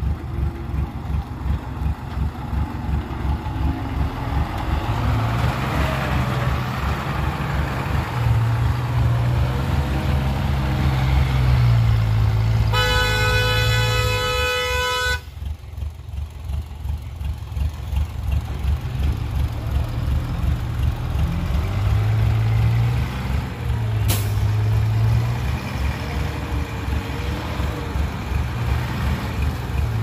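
Loaded Hyundai dump truck's diesel engine running under load with a low, pulsing drone. About halfway through, a horn sounds for about two and a half seconds. A single sharp click comes a few seconds after that.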